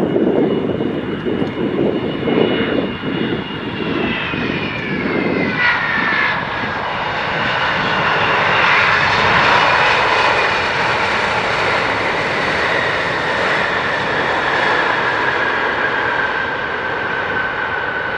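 Boeing 777-200 jet airliner passing close by, its engine whine falling in pitch as it goes past over a loud rush of jet noise. A fluttering low rumble fills the first few seconds, and the noise peaks about ten seconds in.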